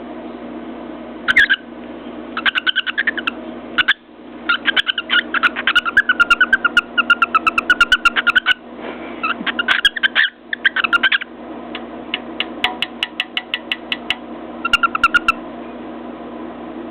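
Cockatiel chattering in quick runs of short chirping notes, several a second, in bursts with brief pauses, with sharp ticks among the notes.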